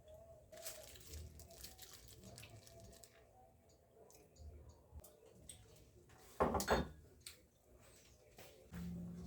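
Light clicks, knocks and rustles of household items being handled, with one louder rustling clatter about six and a half seconds in. A steady low hum comes on near the end.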